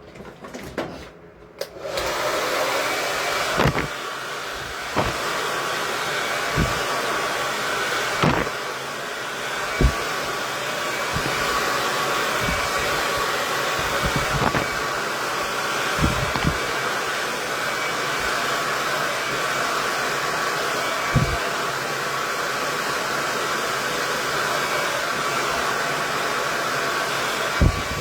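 KISS 1875-watt Pro tourmaline ceramic hair dryer switching on about two seconds in, then running steadily and blowing hard, with a few short knocks now and then.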